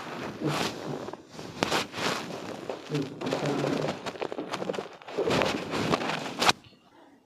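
Hands rubbing and pressing over a patient's body and clothing during a chiropractic treatment: repeated rustling strokes about a second each, ending in one sharp click about six and a half seconds in.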